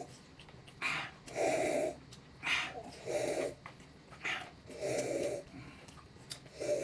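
A person breathing loudly in a steady rhythm: a short hiss, then a lower, rougher breath, repeated about four times.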